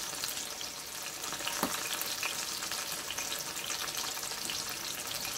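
Breadfruit slices frying in hot oil in a stainless steel pan: a steady sizzle dotted with many small crackling pops, the slices cooked through to well done.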